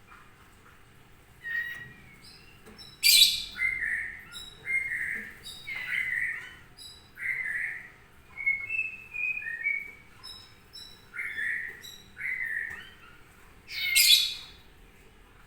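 Kitten mewing over and over: short, high-pitched mews with gaps between them, and two louder cries, one about three seconds in and one near the end.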